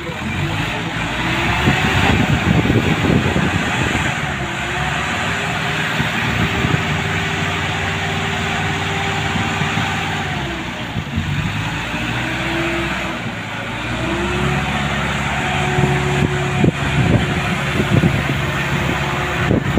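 Engine running, its pitch climbing to a steady hum, dropping about ten seconds in, then climbing and holding again, with scattered knocks and clanks.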